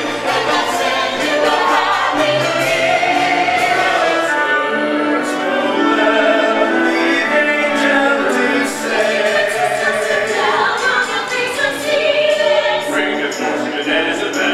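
A group of Christmas carolers singing in harmony with musical accompaniment; about four seconds in, a lower male voice comes to the fore for a few seconds before the higher voices take over again.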